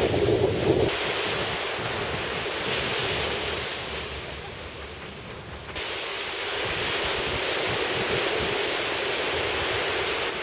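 Shore-break surf washing up a sand beach, with wind rumbling on the microphone. The sound eases off in the middle and jumps back up abruptly near six seconds.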